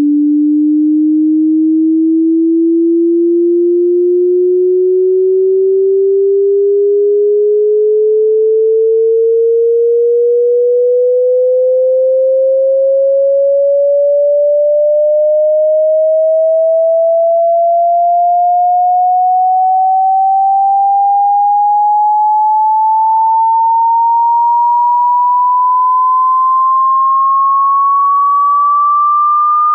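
A single pure sine test tone sweeping slowly and steadily upward in pitch, from a low hum to a high whistle.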